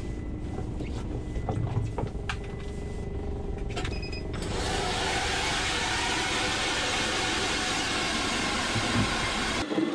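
StrikeMaster Lithium battery-powered ice auger drilling through the ice: a steady motor and cutting noise that starts suddenly about halfway through and stops abruptly near the end. A few knocks and a low rumble come before it as the auger is set in place.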